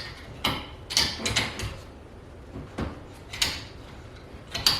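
Metal knocks, clicks and scraping rattles from an LED shop-light fixture being handled and tried in its ceiling mount, about half a dozen separate strokes.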